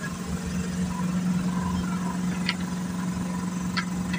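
Engine idling steadily, a constant low hum, with two light clicks about two and a half seconds in and near the end.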